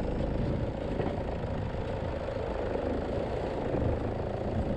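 Pickup truck's engine running steadily as it drives slowly in low gear, heard close up from a camera on the bonnet.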